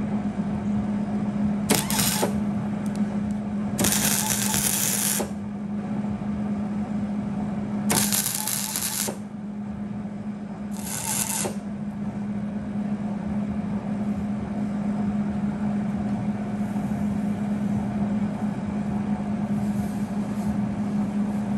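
Arc welder tack-welding steel nuts onto a steel frame: four short bursts of crackling arc, the longest just over a second, over a steady low hum.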